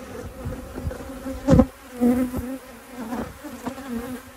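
Honeybees of an opened colony buzzing in a steady, even hum, with a single sharp knock about one and a half seconds in.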